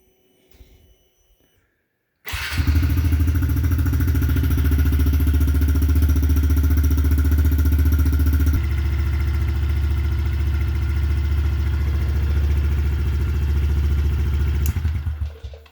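Honda CRF110's small air-cooled single-cylinder four-stroke engine running steadily at a constant speed to warm up the oil before an oil change. It cuts in sharply about two seconds in and dies away just before the end.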